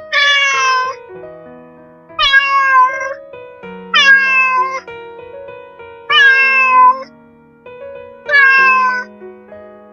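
A cat meowing five times, about every two seconds, each call falling in pitch, over background music.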